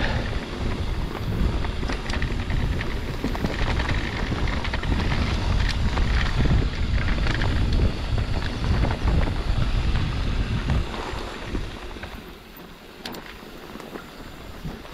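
Mountain bike on the move: heavy wind buffeting on the camera microphone mixed with the rattle and knocks of the bike over rough ground. It eases off about twelve seconds in.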